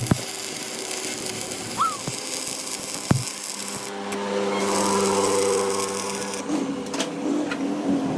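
A power tool or workshop machine running steadily, with a high hiss and a few sharp knocks: near the start, about three seconds in and about seven seconds in.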